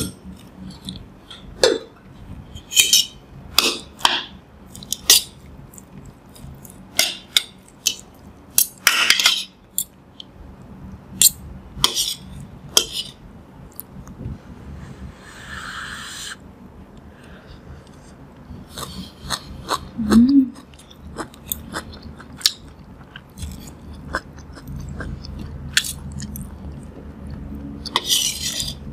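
Close-miked eating: a metal spoon and fork clink and scrape against a ceramic bowl again and again, with chewing of rice and kimchi stew between the clinks.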